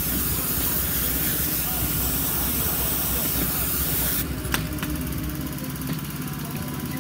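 Pressure washer spraying a car wheel: a steady hiss of water over the washer's running engine. About four seconds in the spray stops with a click as the trigger is released, and the engine keeps running.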